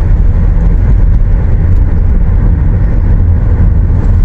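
A car driving, with a steady, loud low rumble of engine and road noise.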